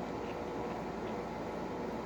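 Steady low hum and hiss of background noise, with no distinct sounds standing out.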